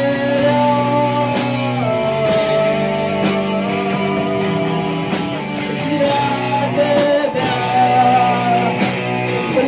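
Rock band playing: a woman singing a melody with long held notes over electric guitar, bass and drums.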